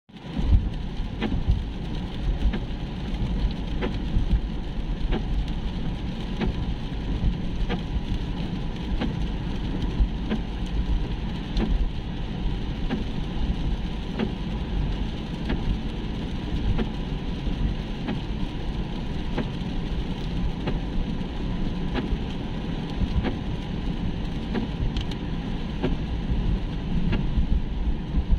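Car driving in rain, heard from inside the cabin: a steady low rumble of tyres and engine on the wet road with rain on the car, and sharp ticks repeating about every second and a quarter.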